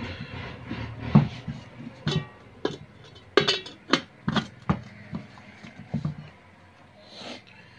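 Handling clicks and knocks as the casing of an electric lassi churner is fitted back together by hand: a string of irregular sharp knocks, thinning out near the end.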